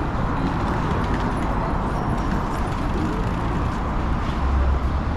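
City street ambience: the steady wash of passing traffic, with a low rumble growing louder near the end.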